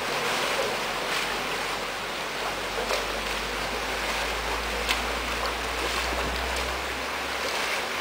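Steady rush and slosh of stream water with small splashes as a runner wades through it in the shallows along a bridge wall.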